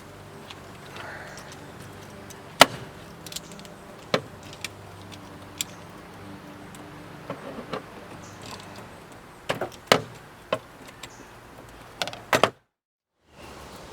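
Scattered sharp metallic clinks and clicks of a wrench working the bolts of a battery cable clamp, over a faint steady hum.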